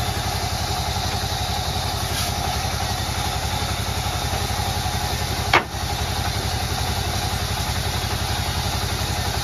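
Table band saw at a sawmill running steadily, a machine hum with an even low pulse. A single sharp knock about five and a half seconds in.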